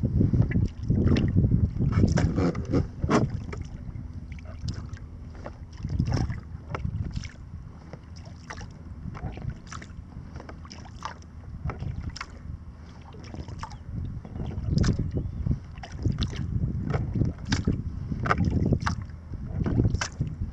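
Small splashes and water lapping against a kayak's hull, scattered irregularly, under gusts of wind rumbling on the microphone that are strongest in the first few seconds and again in the last few.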